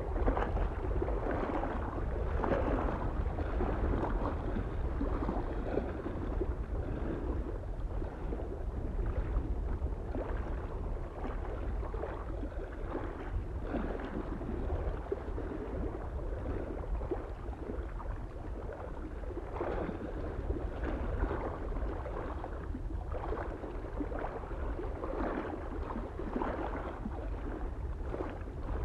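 Small waves lapping against a lake shore in irregular swells of splashing, over a steady low rumble of soft wind.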